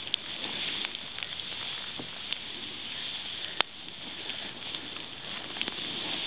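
A snowboard riding through deep powder snow: a steady hiss of the board sliding on snow, with scattered light clicks and one sharper knock about three and a half seconds in.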